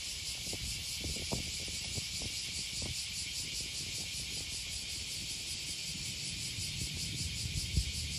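Steady high-pitched drone of insects, with a few faint ticks in the first few seconds.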